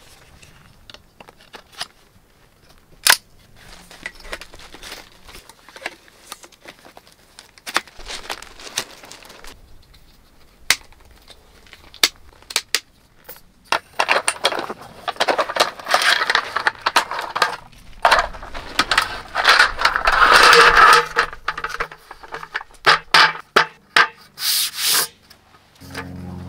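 Mission Mountain folding camp table being put together: metal frame poles click and knock as they are fitted, then the roll-up aluminium slatted tabletop rattles and rustles as it is unrolled and laid across the frame. Sharp clicks run throughout, with a denser stretch of rattling past the middle.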